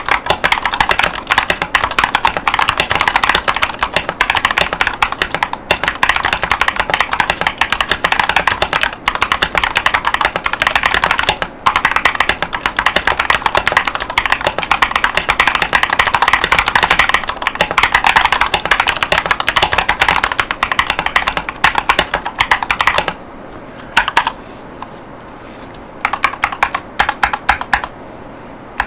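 Fast typing on an Akko 5108S mechanical keyboard with Chosfox Voyager V2 45gf tactile switches and dye-sub PBT OEM-profile keycaps: a rapid, continuous run of keystroke clacks. About three-quarters through the typing stops for a few seconds, broken by one short burst of keys, then picks up again near the end.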